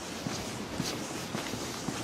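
Footsteps walking on a concrete pier, about two steps a second, over a steady hiss.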